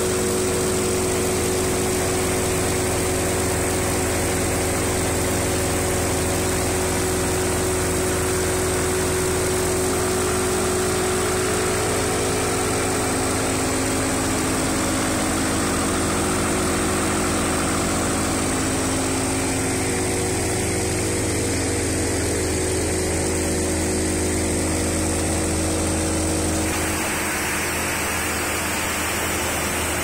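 Diesel engine of a Ritlee 225 wood chipper running steadily. About three seconds before the end the deep engine sound eases and a hissing rush comes in as ground material sprays out of the discharge chute.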